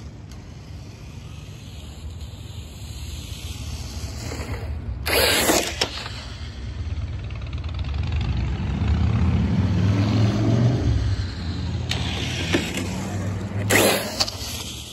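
Brushless Traxxas TRX-4 RC truck driving over pavement and rough concrete: a rumble of tyres and drivetrain that grows louder as it approaches, with short loud bursts about five seconds in and again near the end as it rushes past close by.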